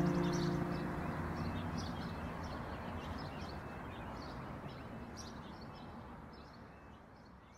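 Small birds chirping in short repeated calls over a steady background hum, the whole sound fading out steadily to near silence.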